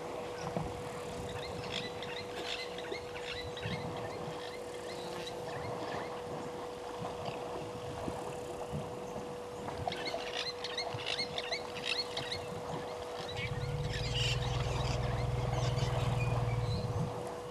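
Water sloshing and splashing as elephants bathe, with small birds chirping over it and a steady hum underneath. Near the end a deep low rumble swells for about four seconds and is the loudest sound.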